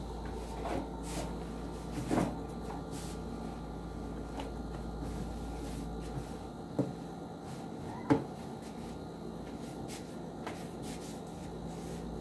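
Handling of cloth trousers on a sewing-machine table: a few short knocks and rustles, the sharpest about eight seconds in, over a steady low hum.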